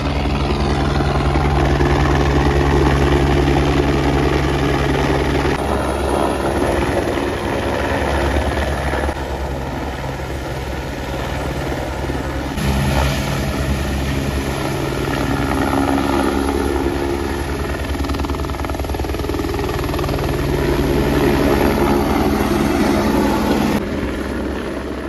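Helicopter running close by: a loud, steady rotor thrum with a fast chop in the bass, shifting abruptly in tone a few times.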